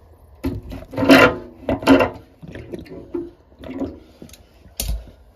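Grips turning a radiator valve's chrome union nut, metal creaking and rasping in several short strokes as the nut is worked loose, with a single thump near the end.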